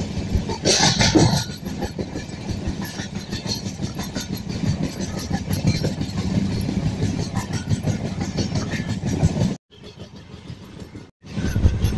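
Running train heard from on board: a steady rush of wheel and rail noise with rapid clicking of the wheels over the track, swelling louder about a second in. Near the end the noise drops suddenly to a much quieter stretch for about a second and a half, then comes back at full level.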